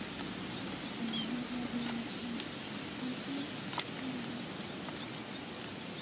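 Hands digging and feeling through soft wet mud, with a few small sharp clicks and squelches. Under it is a faint outdoor hiss and a low drawn-out sound that comes and goes.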